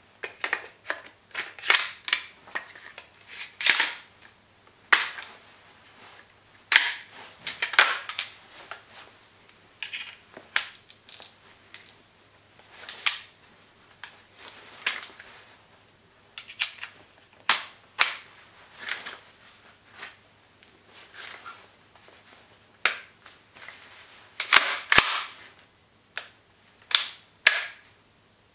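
Metal and polymer parts of a WE MSK (Masada ACR) gas blowback airsoft rifle clicking and clacking as it is handled: the upper and lower receivers are fitted together and the controls are worked. Irregular sharp clicks, some in quick clusters, with the loudest group near the end.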